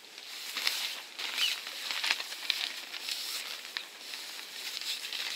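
Heavy 300D tent canvas rustling and flapping in irregular bursts as a tent pole is worked up under it, with a few sharp ticks among the rustling.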